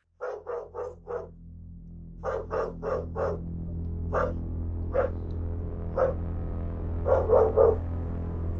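Dog barking in short bursts: a run of four barks, then another four, then single barks about a second apart and a quick three near the end, over a steady low hum.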